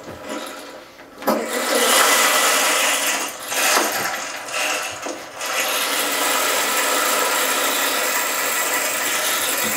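Homemade rain stick, a long tube tilted so its filling pours through inside, giving a continuous rushing hiss like rain or a flowing stream. It starts about a second in, dips briefly twice, then runs on steadily.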